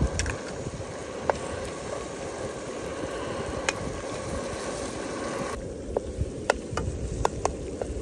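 Metal spoon clinking against an aluminium cooking pot while eggs are stirred into a tomato mixture: two single clinks, then a quick run of about six near the end. A steady hiss from the camping stove and simmering pot runs underneath and thins abruptly about five and a half seconds in.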